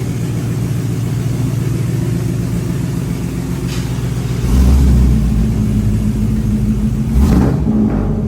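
Stock 5.3 V8 pickup running through a freshly fitted true dual exhaust with Borla XR1 mufflers and an X-pipe. It idles steadily, then is revved about halfway through and blipped again near the end, with a deep rumble.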